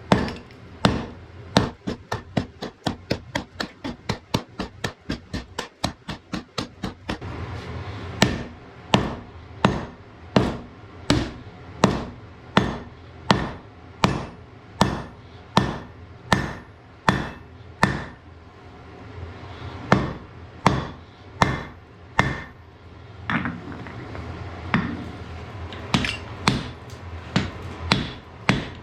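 Hammer blows on hot iron at the anvil, forging an axe: a quick run of strikes for the first seven seconds or so, then slower, steady blows about one and a half a second.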